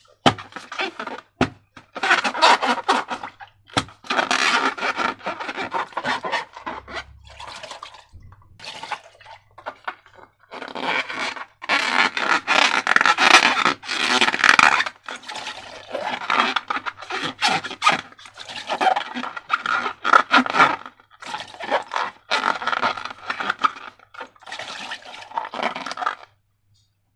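Slime being handled: wet, sticky squelching and crackling in irregular bursts with short pauses between them.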